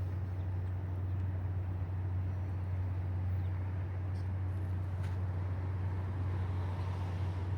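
Train rumbling steadily with a deep low hum and a light hiss over it.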